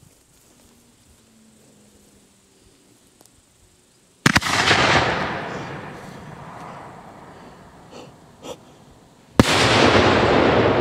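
A homemade 3-inch maroon shell firing: a sharp bang about four seconds in as the lift charge throws it up, with a tail that dies away over a couple of seconds, then about five seconds later a second sharp, loud report as the 200 g maroon bursts in the air, followed by a long rolling echo.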